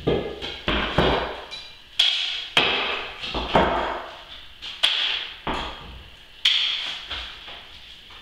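Hollow glass blocks knocking against one another as they are handled and set down, about nine irregular clunks, each with a short glassy ring.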